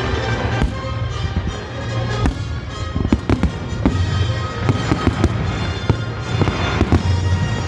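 Aerial firework shells bursting one after another in a quick string of sharp bangs, with music playing underneath.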